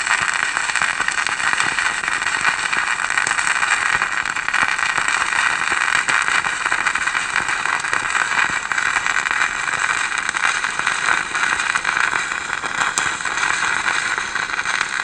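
Stick welding arc burning a 2.0 mm 6013 electrode: a steady crackle without a break.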